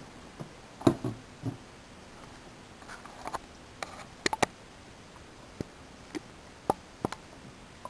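A dozen or so short, sharp clicks and a few soft knocks, spaced irregularly over a quiet room's background hiss.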